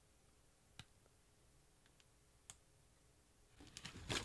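Near silence with two faint clicks, then near the end the rustle and a sharp knock of a hardcover book in a plastic-covered dust jacket being handled and closed.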